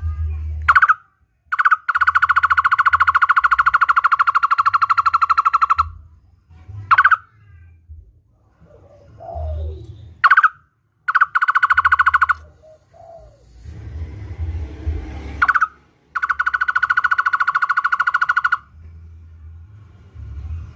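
Barbet calling: long, rapid trills held on one pitch, each opened by a short rising note, the longest about four seconds starting about two seconds in, with two shorter trills in the middle and near the end. A few lone rising notes come between the trills.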